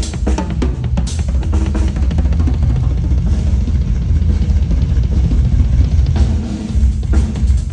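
Drum kit played live: bass drum, snare and cymbal strokes over a heavy low boom, with a cymbal crash about a second in. The playing thins out in the middle and picks up again near the end.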